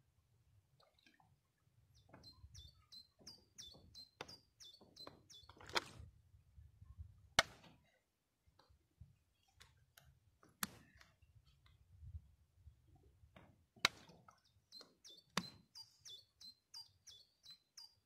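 A songbird singing two bouts of quick, high, repeated falling notes, with a few sharp clicks between the bouts.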